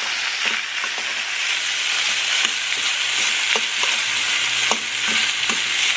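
Diced, pre-cooked fajita chicken sizzling steadily as it fries in oil in a pan, with scattered short clicks through the sizzle.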